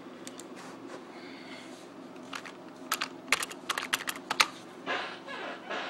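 Computer keyboard and mouse clicking: an irregular run of sharp clicks, thickest in the middle.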